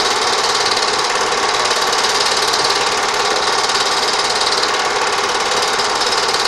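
Home-movie film projector running: a steady, fast mechanical clatter from its film-advance mechanism.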